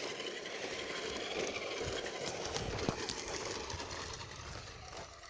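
Traxxas RC car running on a nearly flat battery: its electric motor whirring and its tyres rolling on the ground, with a sharp click about three seconds in and the sound fading near the end.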